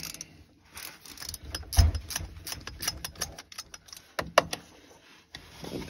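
A hand screwdriver working the mounting screws at the base of a shower pump: scattered clicks, taps and scrapes of metal, with a heavy knock about two seconds in and a sharp tap a couple of seconds later.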